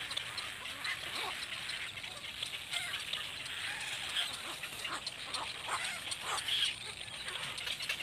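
Calls at a cormorant nest: a busy run of short, quick call notes from the chicks begging to be fed. One louder call comes about two-thirds of the way through.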